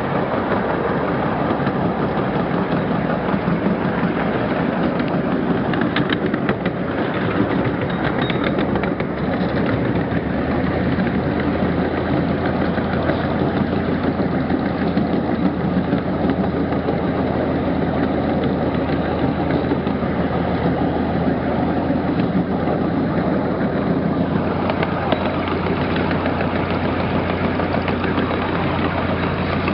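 12-inch gauge ride-on train running, heard from aboard an open passenger car: a steady mechanical rumble of the locomotive and wheels on the track, with a low steady drone coming in about ten seconds in.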